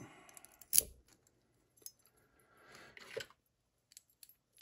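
Small metal lock parts and tools being handled: one sharp click about a second in, a brief rustle ending in a knock, then a few faint ticks.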